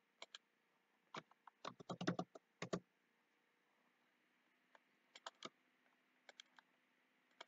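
Faint clicks and key taps from a computer keyboard and mouse: a couple of single clicks, then a quick run of a dozen or so taps, then a few small groups of clicks.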